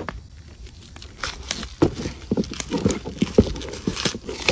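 Steel parts of a swing-away campfire grill being handled on their cardboard shipping box: irregular knocks and clinks, with the cardboard and packing rustling, and a louder knock at the very end.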